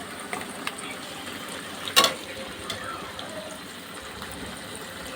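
Onions frying in hot oil in a pan, a steady sizzle, with a few light clicks and one sharp, loud clank of a utensil against the pan about two seconds in.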